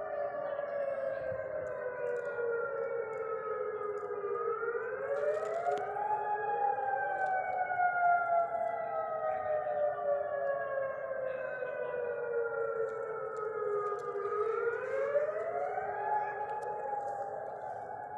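Civil-defence air-raid sirens wailing an alarm over bombardment. The pitch falls slowly, rises quickly about four seconds in, falls slowly again for about eight seconds, and rises once more near fourteen seconds in.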